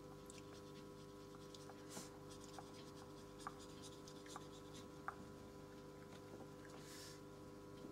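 Faint scratching of a fine paintbrush drawing lines on paper, with a few light ticks, over a steady low hum. A soft swish comes near the end as the brush goes into the paint on the palette.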